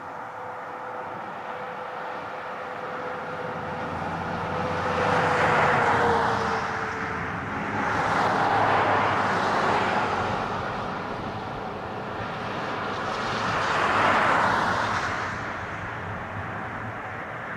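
Boeing 737 jetliner on final approach, its engine roar swelling and fading three times.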